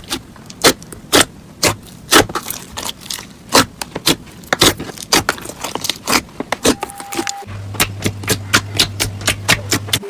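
Slime being squeezed and poked, giving rapid, irregular clicking pops. About two-thirds in, a short steady tone sounds, and a low steady hum joins and carries on under the pops.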